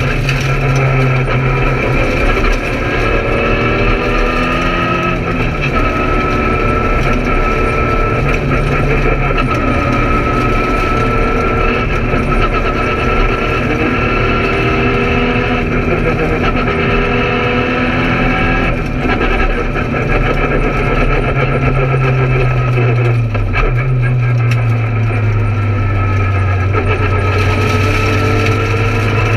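Peugeot 208 R2 rally car's 1.6-litre four-cylinder engine, heard from inside the stripped cabin, driven hard on a stage: the revs climb and drop again at several gear changes, over steady road and tyre noise.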